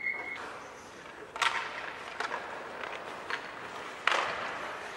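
Ice hockey play: a brief high tone at the very start, then four sharp cracks and knocks of sticks, puck and boards about a second apart, echoing in the rink.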